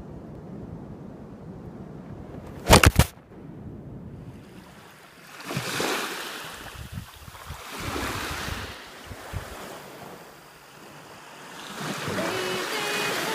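Small waves washing up a sandy beach, the surf swelling and falling back every few seconds, after a stretch of wind rumbling on the microphone. About three seconds in come three very loud sharp knocks in quick succession.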